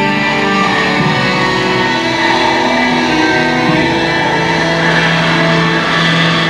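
Music with sustained pitched notes. A long low note is held through the second half.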